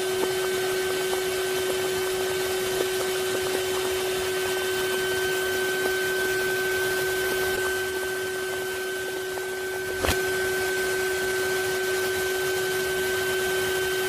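Numatic Hetty HET 200A vacuum cleaner running steadily with a constant whine, its open hose socket sucking at a ping-pong ball. A few light ticks and one sharper click about ten seconds in come from the ball knocking against the inlet.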